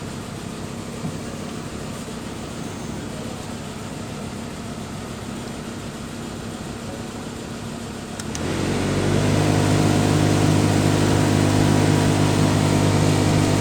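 Lada Kalina's engine idling. About eight seconds in, the electric radiator cooling fan switches on, spins up over about a second and runs on with a louder steady hum and rush of air, the sign that the warmed-up engine has reached its fan-switching temperature.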